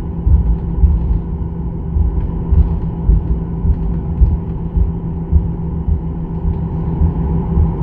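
Boeing 737-800 taxiing, heard from inside the cabin: a steady hum from its CFM56 turbofan engines over an uneven low rumble that swells irregularly as the airliner rolls along the taxiway.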